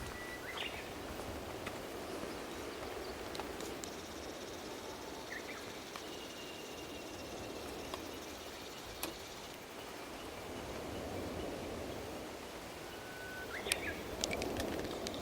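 Steady outdoor background noise with a few brief high bird chirps scattered through it, and one thin whistle held for about two seconds in the middle.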